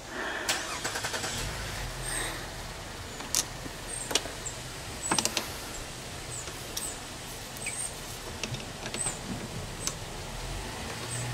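Sharp clicks and knocks of tools and metal trolling-motor parts being handled during disassembly, a handful of separate strikes, over a low steady hum.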